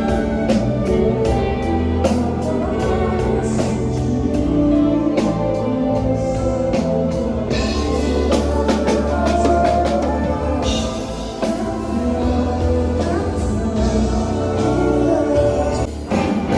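A rock band playing a song live, with a drum kit, electric guitar, bass and a singing voice. The drums beat steadily throughout.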